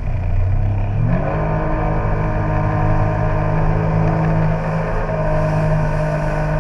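A motor vehicle engine speeding up about a second in, then holding steady at the higher speed.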